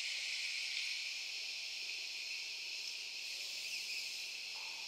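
Electroactive polymer sheets of a sound installation playing manipulated forest recordings: a steady, high hiss.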